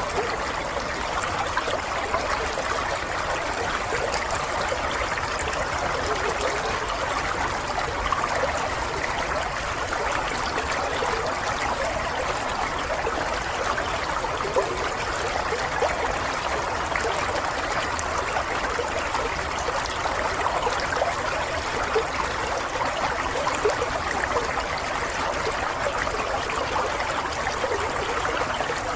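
Running water flowing steadily and evenly, with small irregular splashes.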